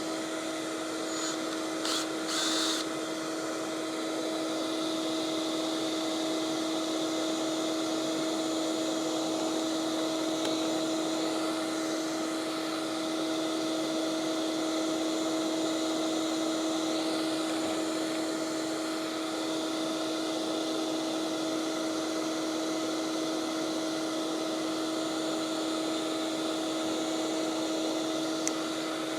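Shop vacuum running steadily with an even hum, drawing lint out of a dryer vent duct. A couple of brief sharp knocks about two to three seconds in.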